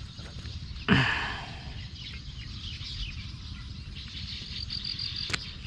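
Outdoor evening ambience with a steady low background noise. About a second in there is a sudden loud sound that falls in pitch and fades over about a second, and near the end a quick run of high chirps.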